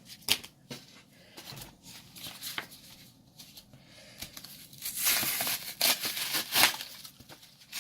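Light clicks and snaps of cards and packaging being handled, then, about five seconds in, the louder paper-and-plastic rustle of a trading-card pack's packaging being torn open and crinkled.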